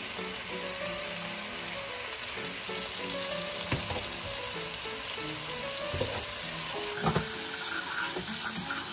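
Garlic and soy-sauce seasoning sizzling in oil in a nonstick frying pan, with a wooden spoon stirring and knocking sharply against the pan a few times, the last two knocks close together near the end. Soft background music with a melody plays under it.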